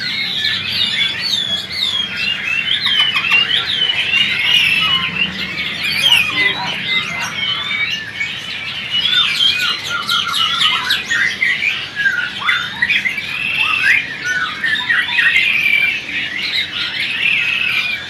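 Many caged songbirds chirping and singing at once: a dense chorus of quick overlapping whistles and chirps that never pauses.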